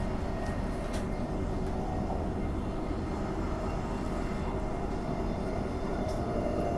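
Bombardier B-series electric multiple-unit train running between stations, heard from inside the car: a steady rumble of wheels on the rails with a couple of faint clicks.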